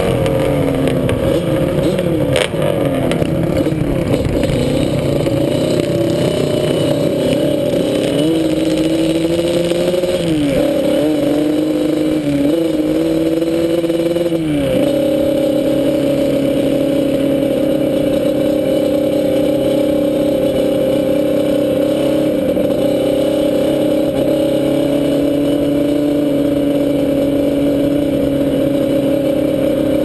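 Sport quad's engine heard from the rider's seat, its pitch rising and falling with the throttle over the first fifteen seconds or so, then holding a steady high pitch at speed.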